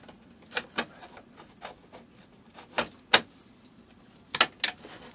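Sharp clicks and knocks of hard model-kit parts being handled and pressed into place, about six in all, the loudest a little past three seconds in.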